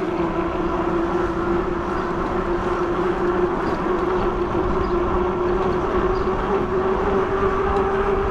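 Fat-tire e-bike in motion: a steady whining hum that rises slightly in pitch as it goes, over rushing road and wind noise.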